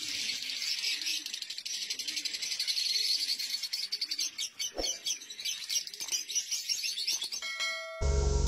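A flock of lovebirds chattering: a dense, continuous mix of rapid high-pitched chirps and twitters from many birds at once. About half a second before the end it cuts abruptly to loud music.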